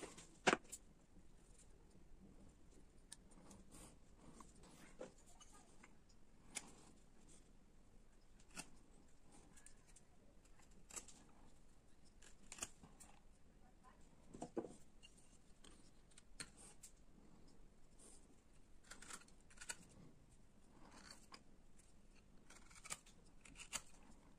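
Hand carving gouge paring linden wood: quiet, short slicing and scraping cuts every second or two, with a sharp click about half a second in.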